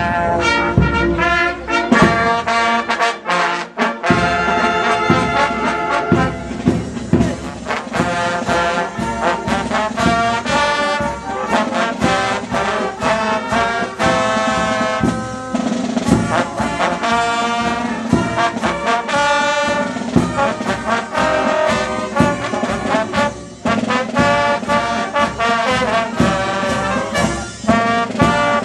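Brass band playing, with a row of trombones to the fore. The band comes in loudly right at the start.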